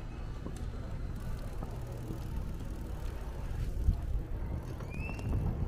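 A rental city bike rolling over stone paving: a steady low rumble of the ride, with a thump about four seconds in and a short rising high chirp near the end.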